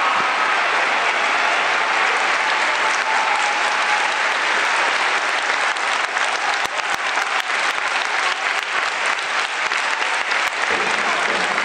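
Large stadium crowd applauding steadily, a dense wash of clapping, with sharper individual claps close by from about six seconds in.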